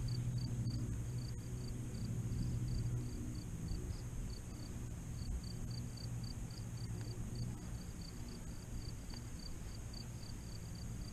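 Crickets chirping in an even rhythm, about three chirps a second, over a steady high insect buzz and a low hum that fades after the first few seconds.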